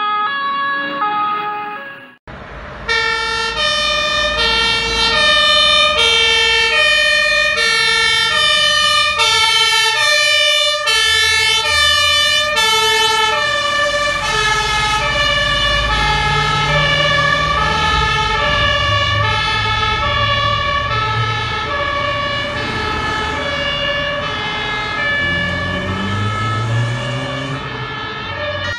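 German fire engines' two-tone horns (Martinshorn) alternating high and low, about one high-low cycle every one and a half seconds, starting about three seconds in after a brief jingle. From about halfway a second horn overlaps, and diesel truck engines rumble and rev underneath.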